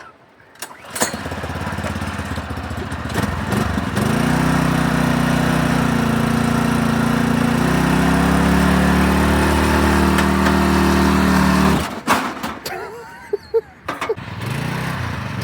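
Predator small engine on a riding lawn mower starting about a second in and running, getting louder with its pitch shifting from about four seconds in. It cuts off abruptly near twelve seconds, a few clicks follow, and it runs again near the end.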